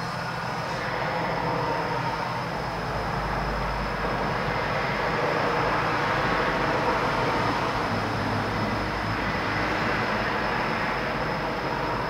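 Distant urban traffic: a steady rumble and wash of vehicle noise that swells to its loudest in the middle as something passes, with a thin, steady high-pitched tone above it.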